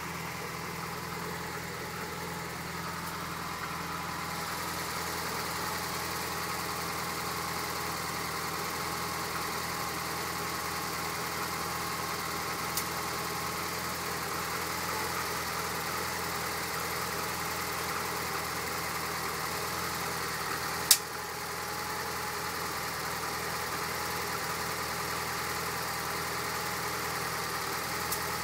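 Lotus Esprit SE's turbocharged four-cylinder engine idling steadily on a cold start, with three sharp tinks: a faint one about halfway through, a loud one about three quarters of the way through, and a faint one near the end. The tink comes only while the engine is cold and sounds like an electrical spark; the owner hopes it is the exhaust expanding as it warms.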